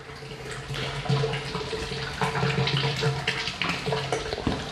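Liquid running from the plate-and-frame filter's outlet line down a floor drain, a steady splashing flow that grows louder about a second in, with a low hum underneath.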